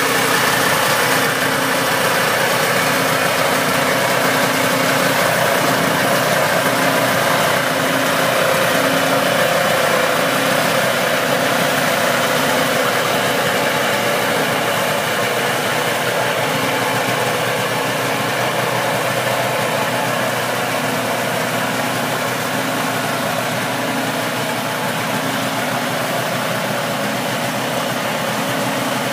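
1973 Ski-Doo Elite snowmobile's two-stroke engine idling steadily.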